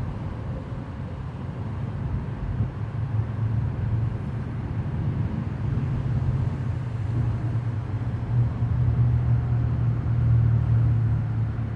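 Steady low mechanical rumble, like a motor vehicle running close by, growing somewhat louder in the second half.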